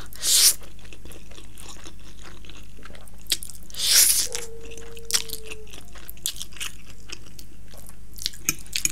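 A person slurps Samyang Buldak spicy instant noodles into the mouth twice, just after the start and again about four seconds in, with wet chewing and small lip-smacking clicks in between.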